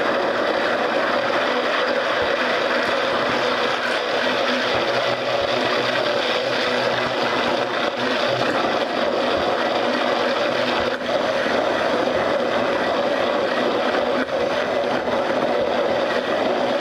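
Hand (immersion) blender running steadily at its slow setting in a tall plastic jug, its blade head churning egg, mustard, lemon juice and olive oil and emulsifying them into mayonnaise as it is slowly drawn upward.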